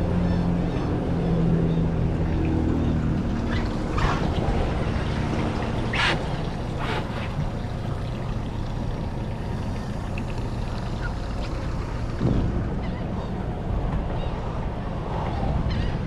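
Boat on open water: a motor hum and dense wind and water noise, with a few brief knocks.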